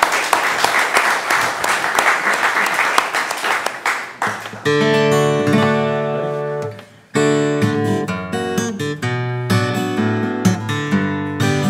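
Applause for the first four seconds or so, then a steel-string acoustic guitar starts playing a song's intro, plucked chords ringing out with a short break about seven seconds in.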